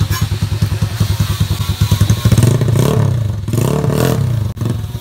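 Tuned Honda EX5 Class 1 single-cylinder four-stroke engine with a 58 block, idling with a fast, even exhaust beat. About two seconds in it is revved twice by hand on the throttle, the pitch climbing and dropping back each time.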